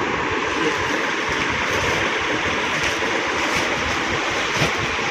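Steady rushing background noise with a few faint crinkles of plastic packaging as the wrapped track pants are handled.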